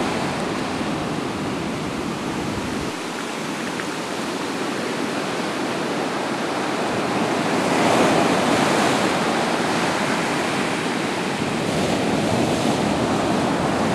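Ocean waves breaking and washing up onto a sandy beach: a steady rush of surf that swells to its loudest about eight seconds in.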